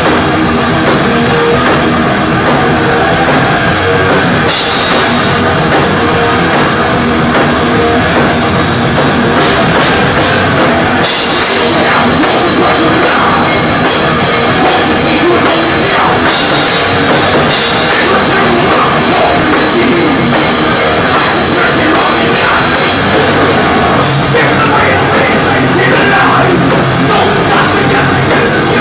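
A live thrash metal band playing loudly, with a drum kit driving the song and cymbals filling the top end.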